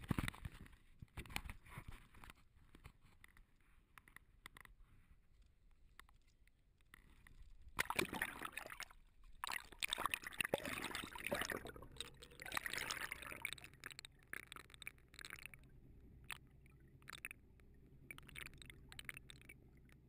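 Water sloshing and splashing around an action camera as it is dipped at the sea surface and pushed under, with scattered sharp knocks and a loud stretch of churning water about eight seconds in. From about twelve seconds on, underwater, a steady low mechanical hum.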